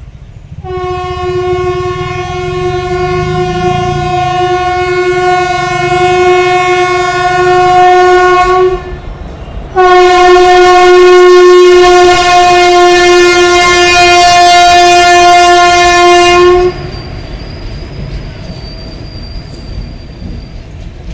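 Indian electric locomotive's horn sounding two long, steady blasts of about eight and seven seconds with a one-second gap between them, over the rumble of the moving train.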